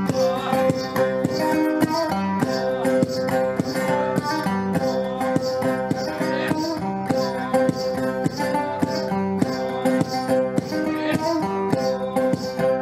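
Guitar played live through effects, a repeating plucked figure over sustained low drone notes, with a dry shaker-like rattle keeping a steady beat about three times a second.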